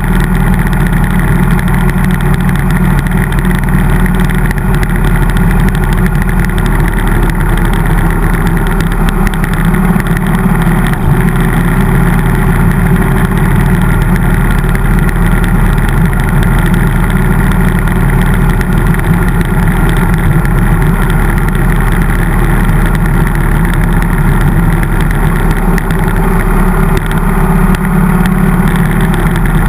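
Harley-Davidson motorcycle's V-twin engine running steadily while cruising at a constant speed, loud and unchanging throughout.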